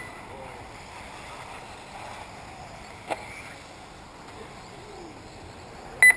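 Faint steady hum of distant 1/10-scale RC buggies running on a dirt track, with a single sharp click about halfway. Near the end comes one short, loud, high electronic beep, the kind a race lap-timing system gives as a car crosses the line.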